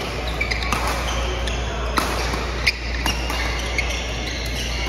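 Badminton rackets striking a shuttlecock in a fast doubles rally: several sharp hits less than a second apart, with short squeaks of court shoes in between. A steady low hum runs underneath.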